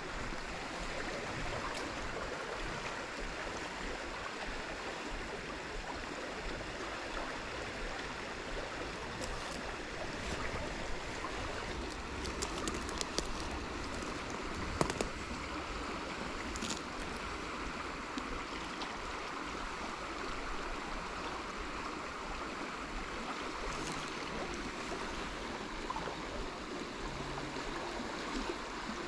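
Small, fast-flowing stream rushing over riffles and a little cascade, a steady rush of water, with a few faint ticks partway through.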